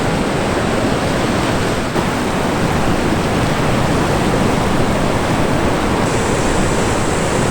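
Ocean surf washing onto a rocky shore: a steady, loud rush of noise with no break.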